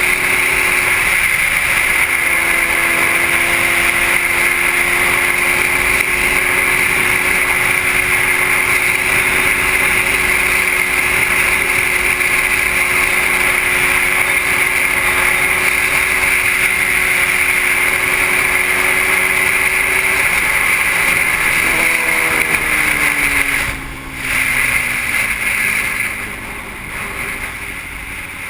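Wind rushing over the camera microphone on a moving motorcycle, with the bike's engine running at a steady pitch underneath. A little past twenty seconds the engine note falls as the motorcycle slows, and the wind noise drops near the end.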